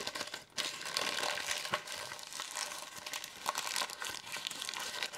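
Paper wrapper on a burrito crinkling and rustling as it is peeled back by hand: a dense run of small crackles starting about half a second in.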